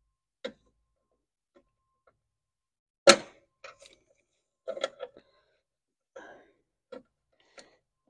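Sporadic clicks and knocks of hands fitting wiring and plastic clips around the battery tray in a Fiat 500's engine bay. One sharp knock about three seconds in is the loudest.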